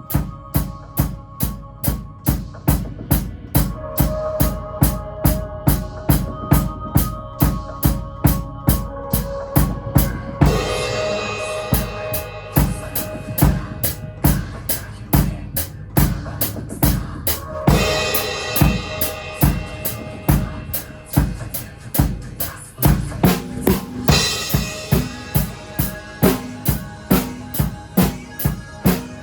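Drum kit played along with a J-pop backing track: steady kick and snare strokes about twice a second with hi-hat, over the song's synth and melody. Cymbals crash three times, about a third, three-fifths and four-fifths of the way through.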